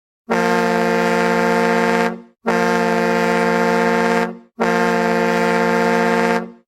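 Hockey goal horn sounding three long, steady blasts of about two seconds each, separated by short gaps.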